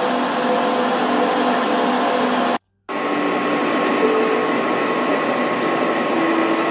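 Steady whirring machine noise, like a running motor, with faint held tones shifting pitch beneath it; it drops out for a moment about two and a half seconds in and then carries on unchanged.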